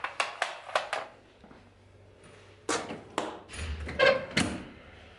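Several sharp clicks and knocks in quick succession, a quieter pause, then a second run of knocks with a dull rumble: handling noise from a handheld camera carried while walking.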